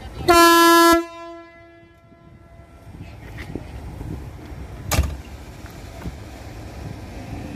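Electric locomotive horn, a MÁV-Start class 480 (Bombardier TRAXX), sounding one short single-note blast of under a second that cuts off sharply and dies away in echo. A single sharp knock follows about five seconds in.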